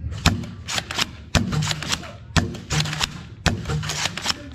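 Nerf foam-dart blaster firing in short full-auto bursts of rapid clicks and knocks, about one burst a second.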